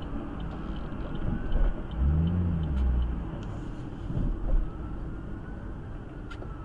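Car engine and road rumble, with an engine sound briefly rising and falling in pitch about two seconds in.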